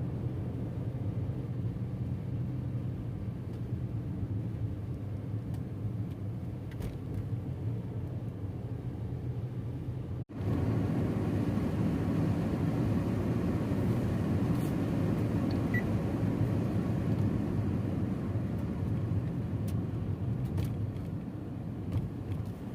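Steady low rumble of a car driving, road and engine noise as picked up by a dashcam microphone inside the car. About ten seconds in the sound cuts out for an instant and comes back somewhat louder.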